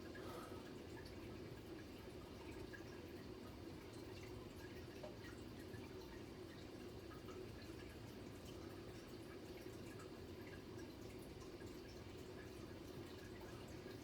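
Quiet room tone: a low steady hum with faint scattered small ticks.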